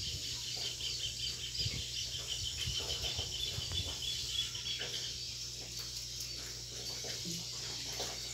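Farmyard outdoor ambience: a fast, evenly repeating high-pitched chirping trill that stops about four and a half seconds in, over a steady low hum.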